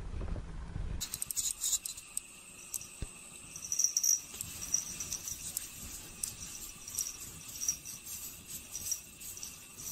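Small collar bell jingling lightly, with scattered clicks and ticks and a thin high ringing, as a cat paws at a glass door.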